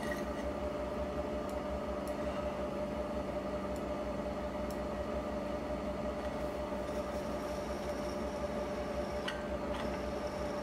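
Drill press running steadily, a 5.5 mm bit cutting through an aluminium bracket: an even motor hum with one clear steady tone over it and a few faint ticks.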